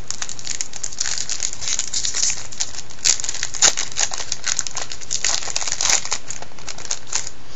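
Wrapper of a 2002 Topps Total baseball card pack crinkling and tearing as it is pulled open by hand, a dense run of crackles with a few louder ones in the middle.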